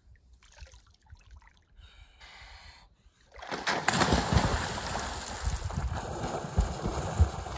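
Quiet at first; then, about three and a half seconds in, loud splashing and sloshing of lake water starts suddenly and keeps going, with dull low thumps: people plunging and swimming in the lake.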